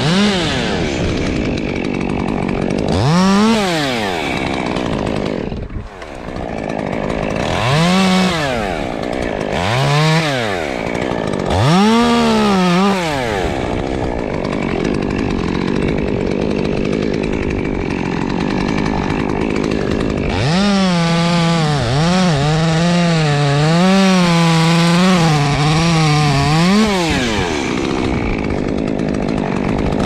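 Muffler-modified Stihl top-handle chainsaw idling and blipped to high revs several times, then held at full throttle for about six seconds with its pitch wavering under load as it cuts through a birch limb. It gives another quick rev near the end.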